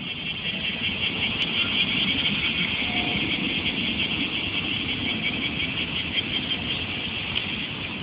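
Cicadas singing in a continuous, steady high-pitched drone, with a low rumble underneath.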